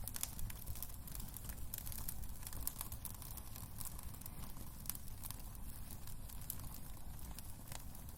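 Wood fire crackling in a fireplace: frequent small, irregular pops over a low, steady rumble of the flames.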